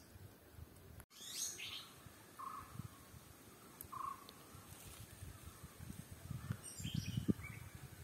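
Faint, scattered bird calls: a few short chirps and two brief whistled notes, over a low rumble.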